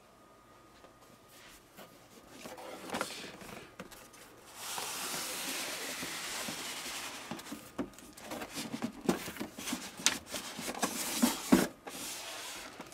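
Packaging being handled as a replica lightsaber hilt is worked out of its box. Rustling is followed by a few seconds of steady rubbing in the middle, then a run of small knocks and taps.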